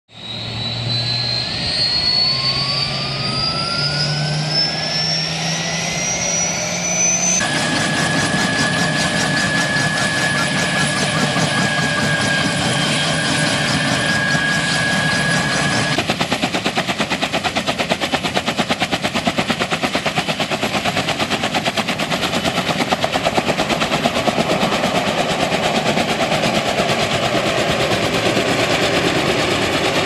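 Kaman K-MAX K-1200 helicopter's turboshaft engine spooling up, its whine rising steadily in pitch for about the first seven seconds, then holding at a steady high whine. About halfway through this gives way to the fast, even pulsing beat of the intermeshing rotor blades over the turbine as the helicopter flies.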